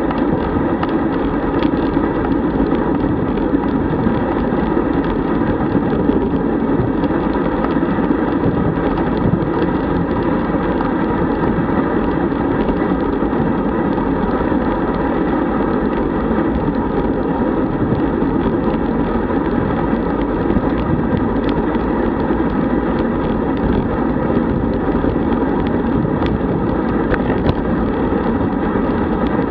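Steady rush of wind over a bicycle-mounted camera's microphone, mixed with road-bike tyres rolling on tarmac at speed.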